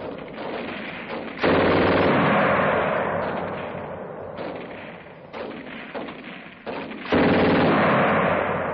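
Bursts of rapid machine-gun fire, heard through a 1940s film soundtrack. A long burst starts about a second and a half in and fades away, a few shorter bursts follow, and another long, loud burst comes near the end.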